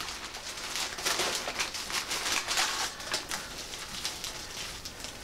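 Clear plastic bags crinkling and rustling as they are handled and pulled apart, a dense irregular crackle, busiest in the first half.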